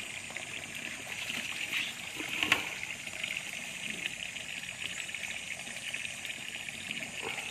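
Steady rushing of flowing water, with a brief click about two and a half seconds in.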